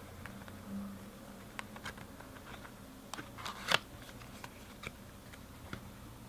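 Thin plastic storage bags being handled: scattered crinkles and small clicks, with one louder sharp snap a little past the middle, over a faint steady low hum.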